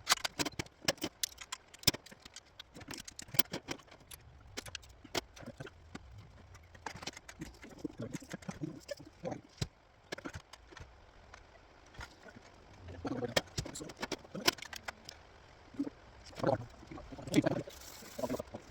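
Scattered sharp metallic clicks and clinks of hand tools and engine parts being handled during engine reassembly. A few duller knocks come in the last several seconds.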